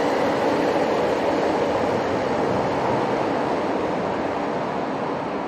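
AI-generated sound effect from a video-to-sound-effects tool: a steady, dense rushing noise that fades slowly toward the end.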